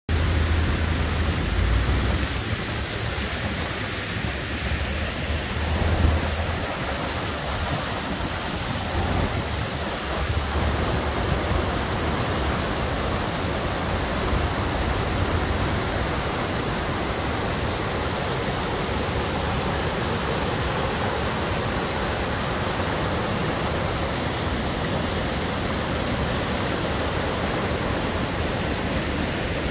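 Rain-swollen river in flood, muddy water rushing steadily and spilling over a low concrete dam. Some low rumbling runs through the first ten seconds or so.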